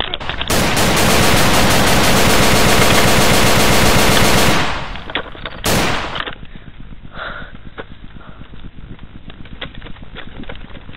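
Rapid automatic gunfire: one long machine-gun burst of about four seconds, then a short second burst about a second later. After that, only quieter clicks and rustle.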